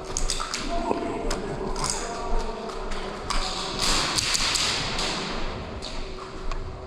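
Scattered airsoft gunfire: sharp clicks and taps of shots and BBs striking, with a hissing rush for a second or two about three seconds in.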